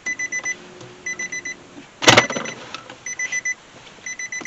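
Car dashboard warning chime beeping in quick bursts of four or five high beeps, about one burst a second, as the start button of a 2012 Nissan Murano is pressed. A single sharp click about two seconds in.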